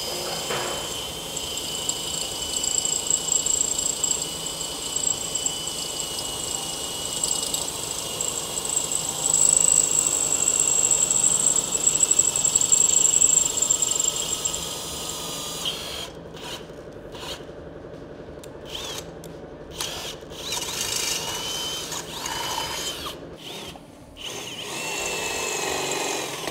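Cordless drill running a 5/16-inch bit through a steel motorcycle frame tube, with a steady high whine from the bit cutting metal. After about sixteen seconds the drill starts and stops in short spurts.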